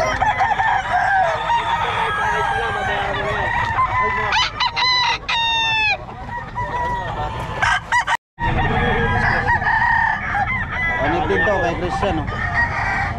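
Rooster crowing: one long crow about four seconds in that drops in pitch at its end, over many other roosters crowing and clucking. The sound cuts out for a moment a little past the middle.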